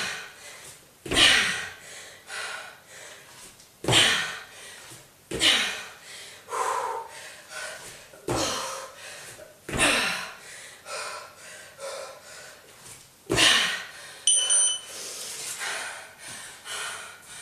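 Heavy, sharp exhalations roughly every one and a half seconds from a woman doing strict mountain climbers. About fourteen seconds in comes a short electronic beep, the interval timer marking the end of the 50-second work period.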